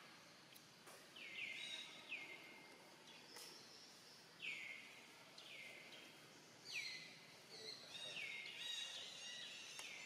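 Faint outdoor background with a bird calling: a dozen or so short high chirps, each dropping in pitch, coming more often in the second half.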